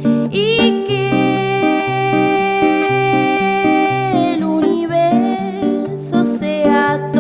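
Song in an instrumental passage: a repeating plucked guitar figure, with a long held, sliding melodic note over it for about four seconds.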